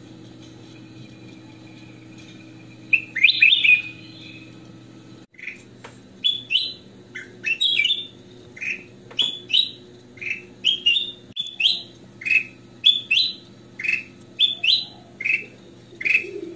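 Ruby-throated bulbul singing: a quick cluster of loud, clear notes about three seconds in, then, after a brief break, a long run of short whistled phrases, about one or two a second, over a steady low hum.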